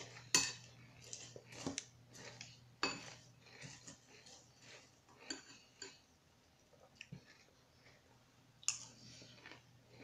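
Spoon clinking and scraping in a bowl of Fruity Pebbles cereal, with chewing between scoops. The sharp clicks come irregularly; the loudest are about half a second in, about three seconds in and near the end, with a quieter spell just before that.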